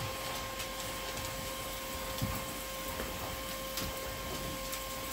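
Vacmaster 2.5-gallon, 2-peak-horsepower shop vac running steadily: an even rushing hiss with a constant motor whine, and a few faint clicks.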